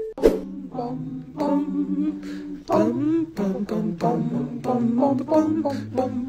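A group of voices singing a cappella in harmony, with steady low bass parts from about three seconds in. There is a sharp click just after the start.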